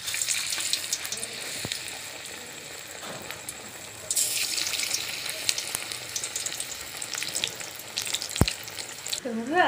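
Battered brinjal slices sizzling as they deep-fry in hot oil in an aluminium kadai. The sizzle gets much louder about four seconds in, as a second slice is dropped into the oil.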